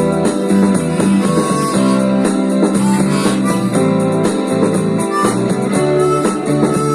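Music: acoustic guitar strummed in a steady rhythm, an instrumental passage of a country-folk song with no voice.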